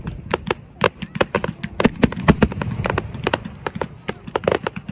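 Firecrackers and fireworks going off in a rapid, irregular string of sharp cracks and bangs, several a second.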